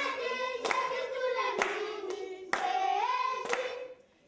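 People singing together, with hand claps keeping the beat about once a second. The singing drops out briefly near the end.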